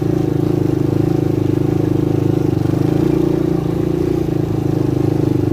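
250cc Lida ATV engine running at a steady speed under way, its note holding even throughout.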